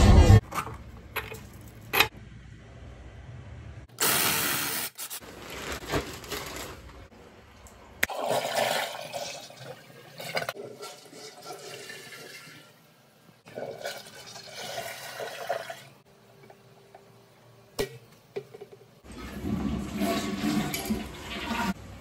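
Toilet being flushed: water rushing and swirling through the bowl in several separate stretches, with a short loud burst about four seconds in.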